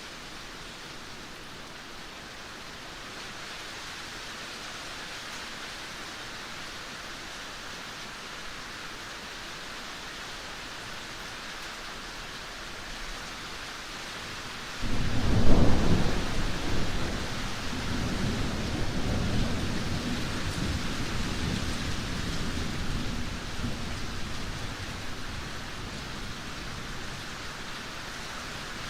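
Steady rainfall, then about halfway through a sudden loud clap of thunder that rolls on as a deep rumble and slowly fades under the rain.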